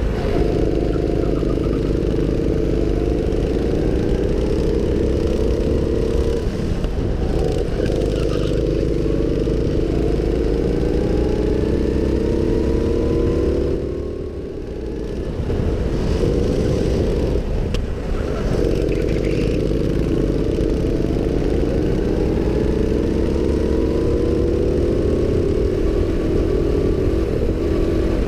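Go-kart engine heard from on board the moving kart, its pitch climbing and falling back over and over as the driver accelerates and eases off through the lap. About halfway through, the engine drops away briefly and goes quieter.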